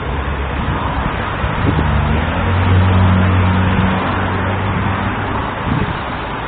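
Steady street noise with a motor vehicle's engine hum that swells around the middle and then fades, like a car passing.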